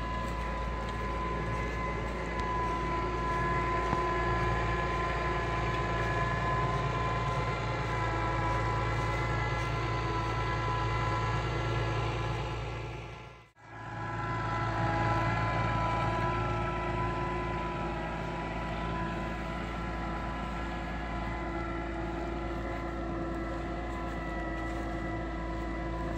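New Holland T7.225 tractor's six-cylinder diesel engine running steadily under load while pulling a plough through the soil, with a steady whine over the engine note. The sound dips out briefly about halfway through and returns unchanged.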